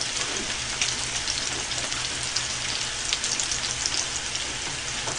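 Pork belly (samgyeopsal) and kimchi sizzling on a flat griddle: a steady frying hiss with fine crackling pops.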